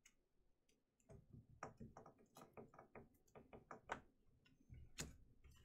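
Faint clicks and taps of trading cards being handled and set down on a tabletop: a quick run of small clicks from about a second in, with two louder knocks near the end.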